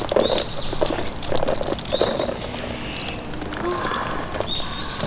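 Water spraying from the hose nozzle of a NEMO Helio pressurised camp shower and splashing over a person's head and onto the gravel. A bird repeats a short rising call several times.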